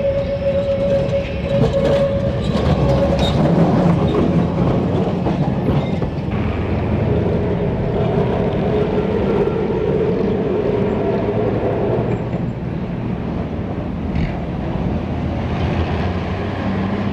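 Electric street tram running on its rails: a continuous rumble with rattling and clicking, and a held whining tone near the start and again for several seconds in the middle.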